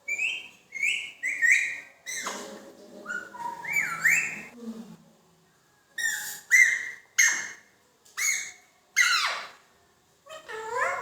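Pet parrot giving a string of short whistled calls and squawks, many sliding sharply down in pitch, with a longer, lower chattering stretch about two to five seconds in.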